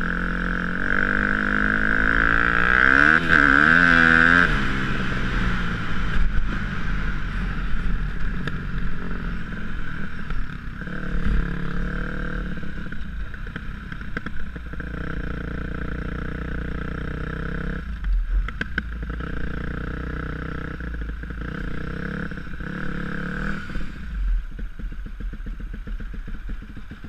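KTM 250 SX-F single-cylinder four-stroke motocross engine heard on board while riding. It revs up with a rising pitch a few seconds in, then runs at changing throttle, easing off toward the end.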